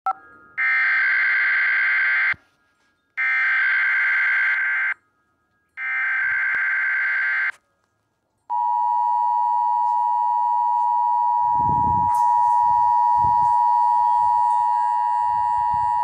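Emergency Alert System tones: the three-times-repeated SAME digital header, three identical buzzy data bursts of about 1.7 s each with short gaps between them. Then the long steady EAS attention tone begins about eight and a half seconds in and runs on, with a few low rumbles under it near the end.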